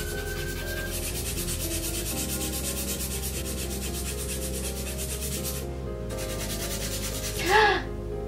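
Hand nail file rasping back and forth in quick, even strokes across a nail extension, with a short break around six seconds in. Soft background music runs underneath, and a brief voice cuts in near the end.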